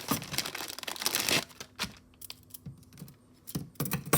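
Plastic packaging crinkling for the first second and a half, then scattered light clicks and a few more crinkles near the end, as a piece of jewelry is taken out and handled.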